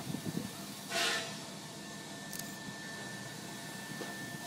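Steam locomotive letting off a short hiss of steam about a second in, over a low background hum and a thin steady high tone.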